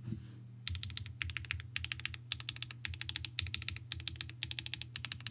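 Bakeneko65 mechanical keyboard with HMX Cloud switches on an aluminium plate and GMK Tuzi clone keycaps, typed on quickly in fast runs of keystrokes starting under a second in. A low steady hum runs underneath.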